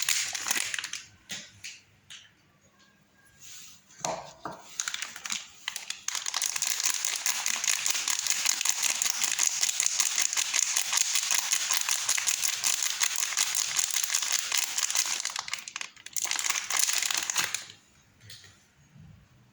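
Wrapper of a packed soap bar being crinkled and torn open by hand. There are short bursts at first, then continuous crinkling for about ten seconds, one more burst near the end, and little after that.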